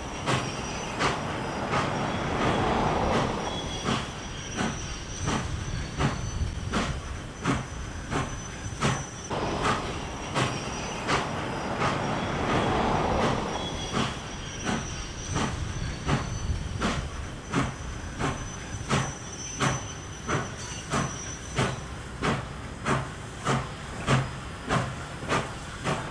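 Nickel Plate Road 765, a 2-8-4 Berkshire steam locomotive, moving slowly with its train: a steady run of short sharp beats, a little under two a second, over a low rumble. A faint thin high squeal sounds through the first half.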